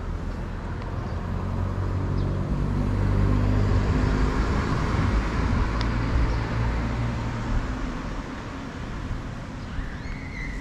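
A road vehicle passing on the street: a low engine hum with tyre and road noise that swells, is loudest around the middle, and fades away.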